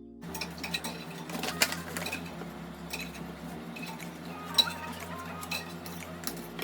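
Kitchen clatter of dishes and utensils: irregular sharp clinks and knocks, the loudest about a second and a half in and again past four seconds, over soft background music.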